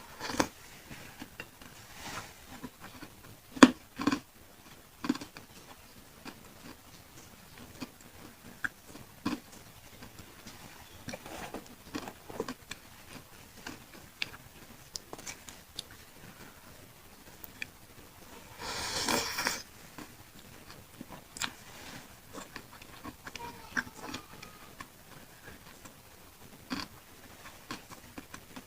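Close-miked chewing and wet mouth sounds of eating pentol meatballs in chili sauce, with scattered sharp clicks. Several louder clicks come in the first few seconds, and one longer noisy sound lasts about a second about two-thirds of the way through.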